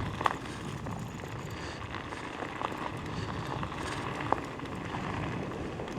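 Nami Klima electric scooter riding along a dirt trail: a steady rush of tyre and ride noise, with a few small knocks from bumps.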